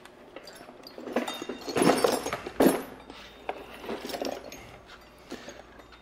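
Metal hand tools clinking and clattering as they are handled, a string of irregular clinks and knocks, loudest about two seconds in.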